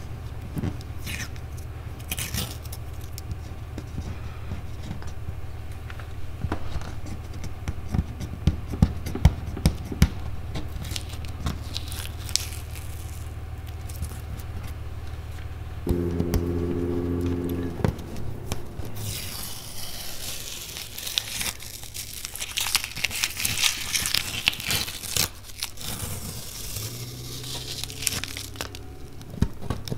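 Masking tape being peeled off a fiberglass boat deck and crumpled in the hand: scattered small clicks and scrapes at first, then a long stretch of tearing and crinkling in the second half. A steady low hum runs underneath through the first half.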